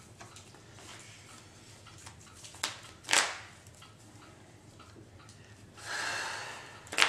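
Quiet room with small card-handling noises: a sharp click a little before three seconds, a short sniff-like burst just after it, a longer breathy hiss near six seconds and another sharp click at the end.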